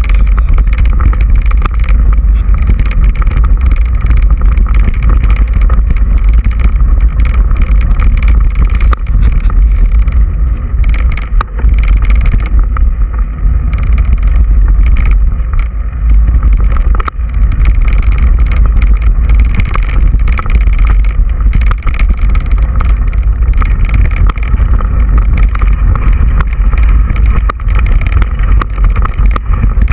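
Heavy, steady low rumble of wind buffeting and trail vibration on a mountain bike rider's action camera, with scattered knocks as the bike rolls over the dirt and stony track.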